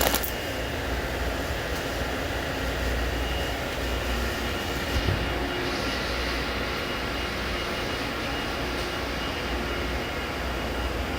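Steady shop-floor background drone: a low hum and ventilation-like noise with a faint, thin, high steady whine.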